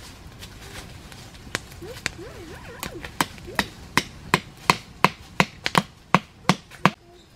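Machete blows striking wood: a couple of scattered strikes, then a steady run of sharp knocks about three a second.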